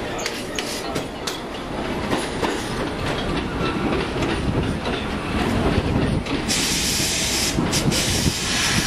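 Subway train running past on the rails: a rumble with wheels clattering over the rail joints. About six and a half seconds in, a loud hiss joins it.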